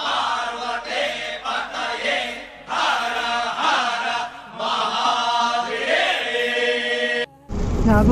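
Chanted vocals, pitched voices rising and falling in phrases of about a second. They cut off abruptly about seven seconds in, and a louder sound with a low rumble takes over.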